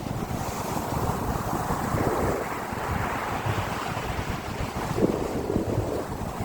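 Wind buffeting the microphone: a gusty, uneven rumble.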